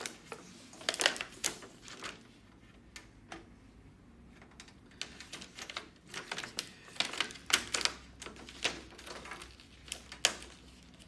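Crinkling and crackling of the thin plastic reflector sheet over an LCD TV's LED backlight strips as it is lifted and flexed, with irregular clicks of tester probes touching the LEDs. The sounds come in uneven clusters, about a second in and again from about five to eight seconds, with one last sharp click near the end.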